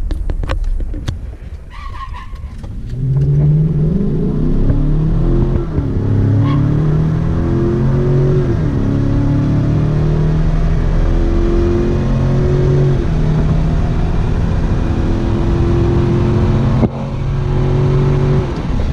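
2016 GMC Sierra 1500 pickup's engine under full-throttle drag-strip acceleration, heard from inside the cab. It launches a few seconds in, then climbs in pitch and drops back at each of several upshifts. A few knocks and rattles come first.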